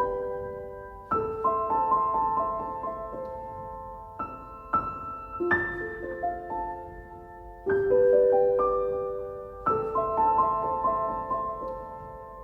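Background music: slow solo piano, struck notes and chords ringing out and fading.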